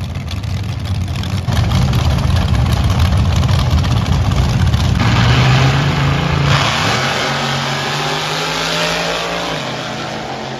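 Front-engine nostalgia dragsters' engines running loud and revving, then launching at full throttle and fading as the cars pull away down the track.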